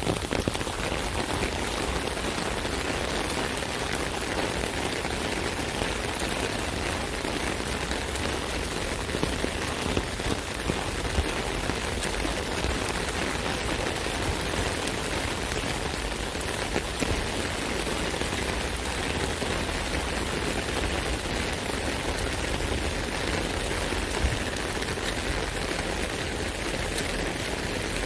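Rain falling on an umbrella canopy: a steady dense patter of drops with now and then a louder single tap.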